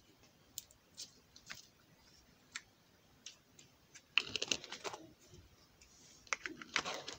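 Slime being squeezed and worked between the hands, making sharp, scattered clicks and pops, then denser runs of clicks about four seconds in and again near the end.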